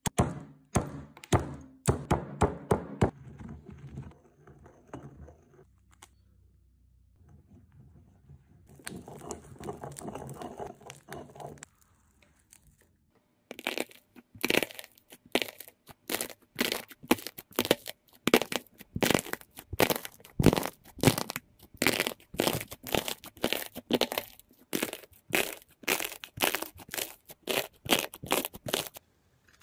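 A stone pestle pounding quickly in a granite mortar. After a quieter stretch, a long run of sharp crackling crunches follows, about two to three a second, as hands press and break a brittle crust on pink and purple slime.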